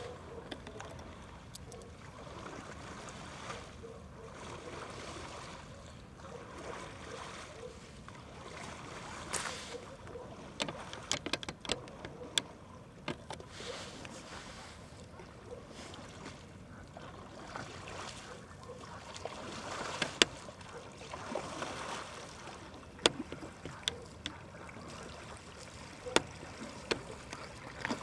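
Water lapping and splashing around a canoe, with sharp knocks against the hull now and then, clustered around ten to twelve seconds in and again over the last eight seconds.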